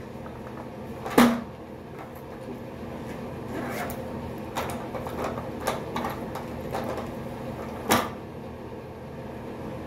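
Small household objects being handled and set down while toiletries are put away: a sharp knock about a second in, a few lighter clicks, and another knock near the end.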